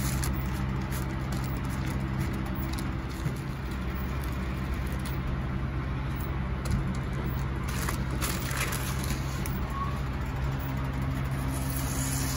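A steady low hum from a running motor or fan, with a few faint crinkles of a plastic sheet being handled about two-thirds of the way in.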